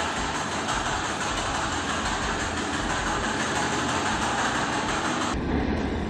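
Ceiling fan running at speed with a steady rushing noise from its three curved blades and motor. A little past five seconds the sound changes suddenly: the high hiss drops away and a lower rumble takes over.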